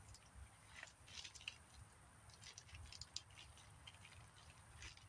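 Near silence with a few faint, light clicks and rustles of gear being handled.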